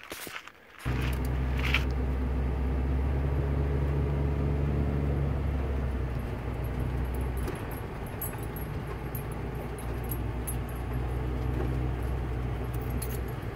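Class C motorhome's engine and road noise heard from inside the cab while driving, a steady low hum that starts suddenly about a second in. The lowest part of the hum weakens about halfway through, with faint high rattles over it near the end.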